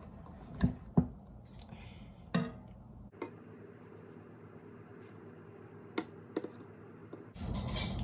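Scattered light clicks and knocks of a round metal cake pan and a mixing bowl being handled while cake batter is poured into the pan, two sharper knocks about a second in. Louder steady noise comes in near the end.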